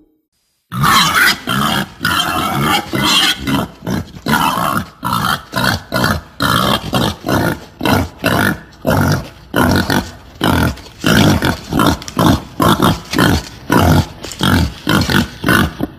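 Female wild boar grunting in a long run of short grunts, about two to three a second, starting about a second in. This is a sow's call used as a hunting lure to draw boars.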